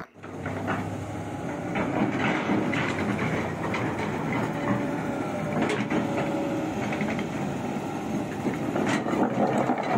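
Sany SY215C hydraulic excavator working, its diesel engine running steadily while the bucket swings over a pile of rubble stone, with a few sharp knocks.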